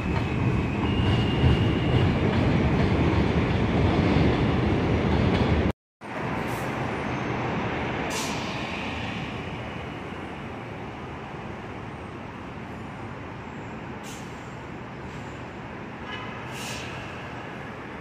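New York City subway train on the elevated Jamaica Line structure, a loud steady rumble of wheels on rails. It breaks off sharply about six seconds in, followed by a fainter rumble that slowly fades.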